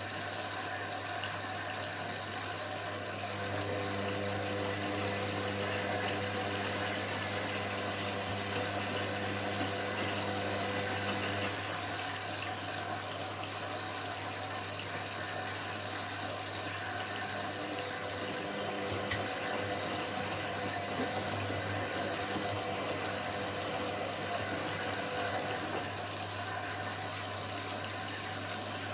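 Washing machine running steadily, a constant low hum with water noise through it. A set of steady motor tones comes in about three seconds in, drops away near twelve seconds, and returns later for several seconds.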